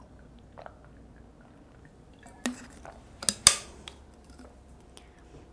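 Metal drinking bottle handled after a drink: a few sharp clicks and knocks as its cap is fitted back on, bunched a little past halfway, the loudest about three and a half seconds in.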